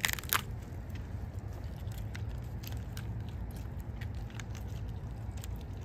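Small wet crackles and clicks of fingers tearing the gills and throat out of a freshly caught yellowtail snapper, sharpest right at the start. A steady low rumble runs underneath.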